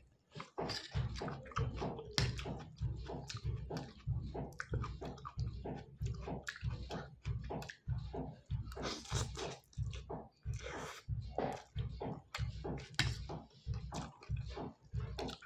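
Close-up wet chewing of spicy Maggi instant noodles, steady at about two to three chews a second with smacking clicks, and noodles slurped in twice about two-thirds of the way through.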